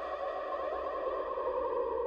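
Background music with long held tones.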